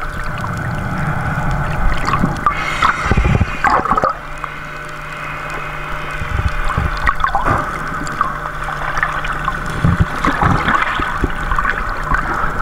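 Water heard through an underwater camera: gurgling and sloshing, with irregular bursts of bubbles over a steady low hum that comes and goes.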